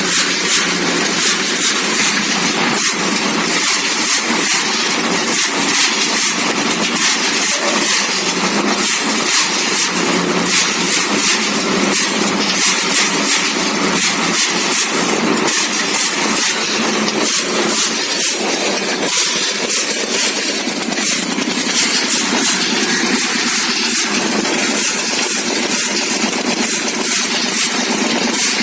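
An engine running steadily, with a fast, even rattle.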